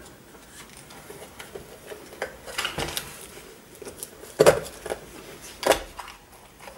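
Steel electrical back box being pressed and worked into wet bonding plaster in a wall hole: scattered metallic knocks and scrapes. The two loudest come about four and a half and nearly six seconds in.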